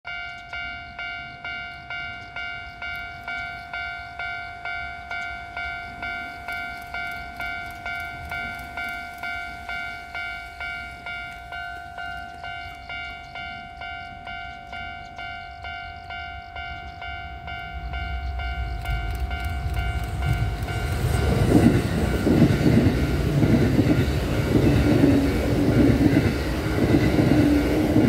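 Japanese level-crossing warning bell chiming in a steady electronic ding-ding, a little over twice a second. About two-thirds of the way through, the rumble of an approaching Kintetsu train (a 1233 series set coupled to an 8600 series set) rises and grows loud, drowning out the bell.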